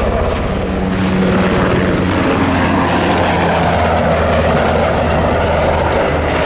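Sikorsky CH-148 Cyclone helicopter in flight: a steady drone of its rotors and twin turboshaft engines, with a fast low pulsing under it.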